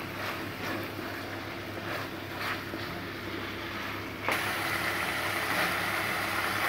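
Chicken curry sizzling in oil in a stainless-steel kadai while a wooden spatula stirs and scrapes through it; the curry has cooked down until its oil has separated. The sizzle grows louder about four seconds in.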